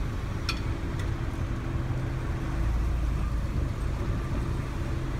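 Cars and a van driving across a railroad grade crossing, with steady engine and tyre rumble. Two short sharp clicks come about half a second and a second in.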